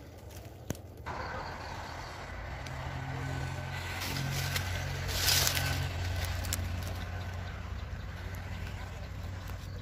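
A motor vehicle's engine passing by, a low hum that builds over the first few seconds and then slowly fades. A short noisy burst about five seconds in, likely dry corn leaves brushing the camera.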